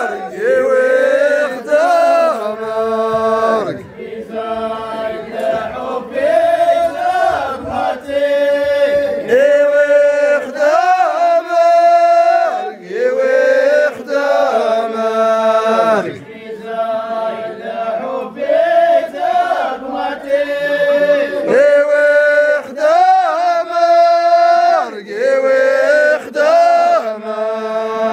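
A group of men chanting in unison, singing a short repeated phrase again and again with long held notes.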